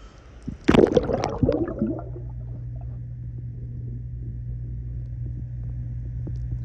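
Pool water splashing and gurgling about a second in, then a steady low hum with the high sounds cut away, as heard with the microphone under the water.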